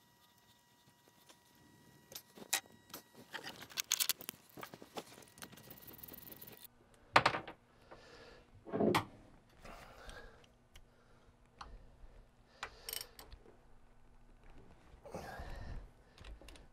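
Socket wrench clicking and metal clinking on the bolts of an engine's thermostat housing as they are undone, in short scattered bursts, with a couple of louder knocks about seven and nine seconds in.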